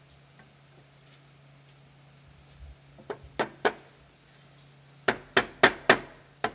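Hammer strikes fixing a wooden guide board to the jamb of a block wall: a quick run of sharp blows about three seconds in, then five more from about five seconds in, over a steady low hum.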